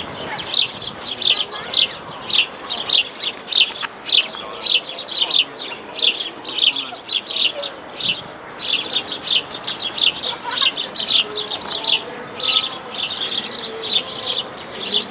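Small birds chirping steadily and repetitively, about three short high chirps a second.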